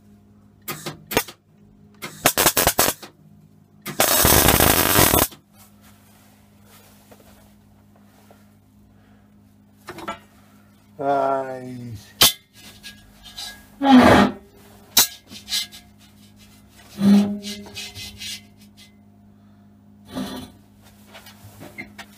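Arc welder laying short tack welds on the steel nose of a gas bottle: a few brief bursts of arc crackle, the longest lasting about a second, over a steady low hum. Later come a falling whine and a few other short sounds.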